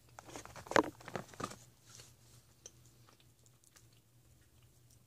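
Mouth noises of someone chewing Dots gumdrops: a cluster of sticky clicks and smacks in the first second and a half, one sharper than the rest, then only faint chewing.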